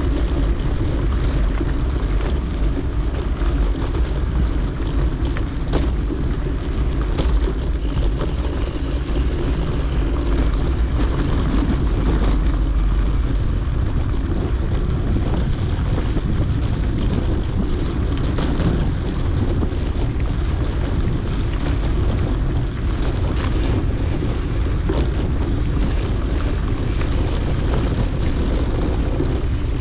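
Steady noise of a mountain bike being ridden on a dirt road, heard through an action camera: wind on the microphone and tyres rolling on dirt, with a few short clicks and rattles.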